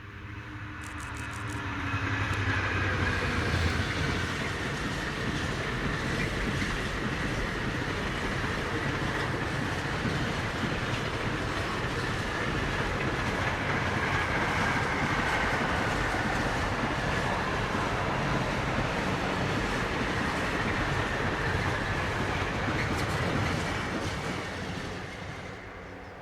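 Train passing at speed on the main line: a loud, steady rush of wheels on rail with a faint high whine. It builds over the first couple of seconds and fades near the end.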